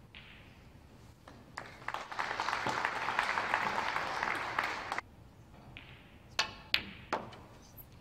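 Audience applauding for a few seconds, cut off suddenly about five seconds in. Then three sharp, ringing clicks of snooker balls as a shot is played: cue tip on cue ball and ball striking ball.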